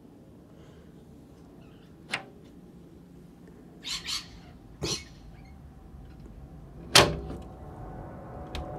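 Rainbow lorikeets giving short, harsh screeches, a few separate calls over a low background hum. A quick double call comes about four seconds in as one bird takes off, and the loudest, sharpest sound comes near the seven-second mark.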